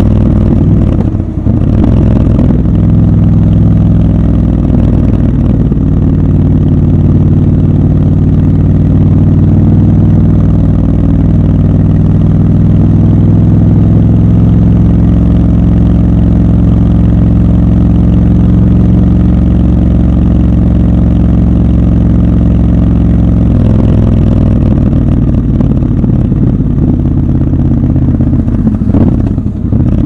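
Triumph Scrambler 1200 XC's parallel-twin engine, heard raw from the rider's seat. It breaks and changes note about two seconds in, as at a gear change, then pulls at steady revs. Near the end the revs fall and turn uneven as the throttle comes off.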